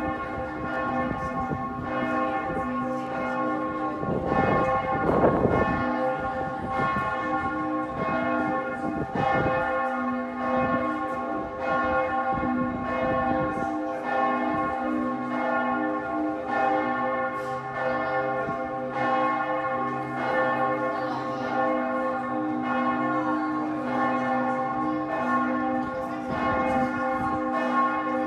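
Bells of Giotto's Campanile ringing, many overlapping tones held steady. There is a brief clatter of noise about four to six seconds in.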